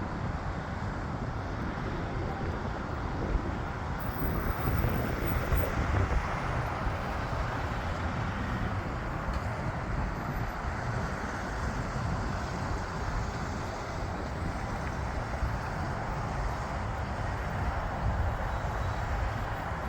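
Steady roar of a distant jet engine, swelling slightly a few seconds in, with wind buffeting the microphone.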